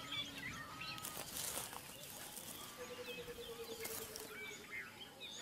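Faint natural ambience: scattered short bird chirps and calls, with one held, slightly falling low note in the middle lasting about two seconds.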